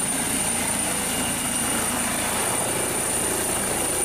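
Eurocopter EC135 helicopter lifting off and climbing: steady, loud rotor and turbine noise with a high, steady whine on top.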